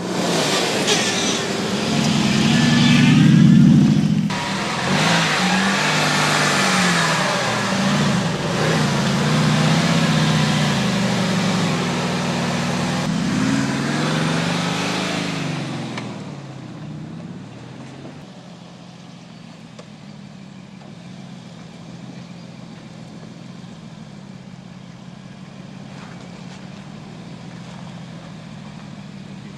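Mercedes-Benz G500's V8 engine revving up and down repeatedly under load, with a broad rushing noise over it. About sixteen seconds in, it drops to a quieter, steady running note.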